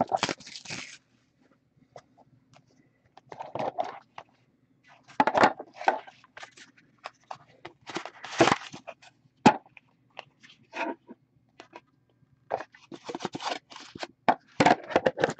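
A hockey-card box and its packaging are being opened and handled by hand: irregular bursts of crinkling, scraping and tearing with short gaps between them, and one sharp click about two thirds of the way through.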